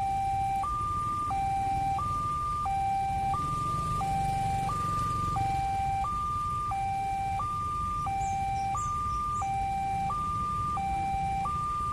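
Railway level-crossing warning alarm sounding its electronic two-tone signal, a high note and a low note alternating about every two-thirds of a second. This is the signal that a train is approaching and the crossing is closed.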